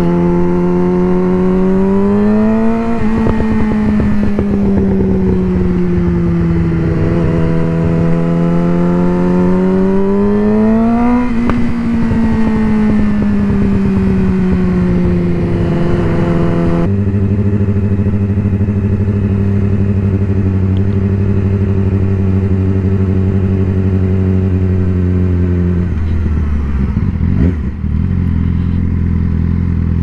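Yamaha R6 inline-four sport bike engine under way. It climbs and drops in pitch twice as the throttle is opened and eased off, then about halfway through the sound changes abruptly to a steady, lower engine note that holds to the end.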